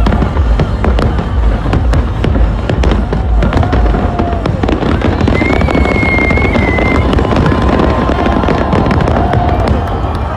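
Fireworks barrage: rapid, dense cracks and bangs over a constant low rumble, with a brief pitched whistle about five seconds in.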